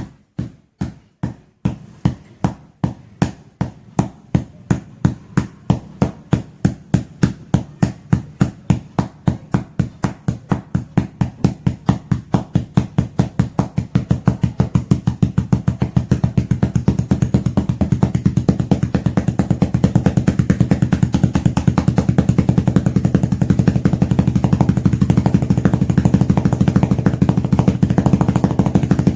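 Foley imitation of a helicopter's rotor spinning up: rhythmic thumps that start at about two or three a second and quicken steadily until about halfway through, then carry on as a fast, even chop.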